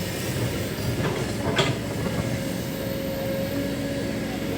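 Kobelco excavator running with a steady low rumble, with one sharp metallic clank about a second and a half in and a steady tone joining about halfway through.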